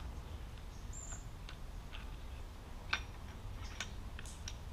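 Light clicks and taps of metal coilover parts being handled as the top hat is fitted onto the spring, with one sharper click about three seconds in, over a low steady hum.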